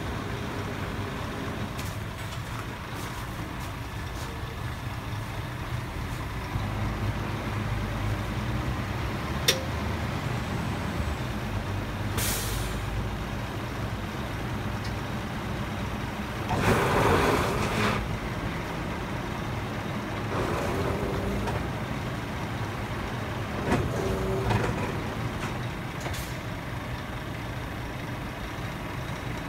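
Heavy truck running at a steady low idle, with a few short bursts of hissing air from its air system; the loudest lasts about a second and a half, a little past halfway through.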